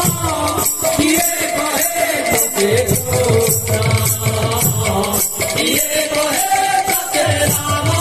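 Kirtan music in an instrumental stretch: a two-headed hand drum beats a steady rhythm under jingling, rattling percussion and a gliding melody line.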